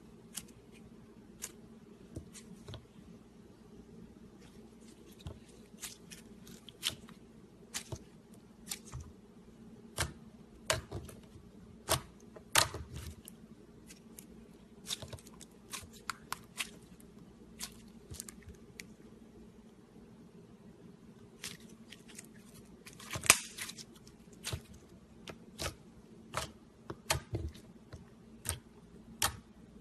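Slime being mixed and handled: irregular sharp clicks and pops, some in quick clusters, over a steady low hum, with the loudest pop about two-thirds of the way through.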